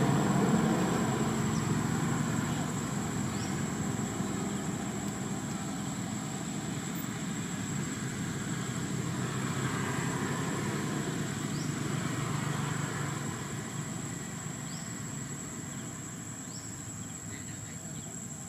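A motor engine droning, loudest at the start and fading steadily as it moves off, over a steady high insect drone, with a few short chirps.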